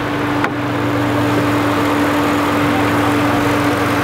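Minivan V6 engine idling steadily under a hiss, running with its airbox blown apart by a nitrous backfire and its intake open. A single click about half a second in.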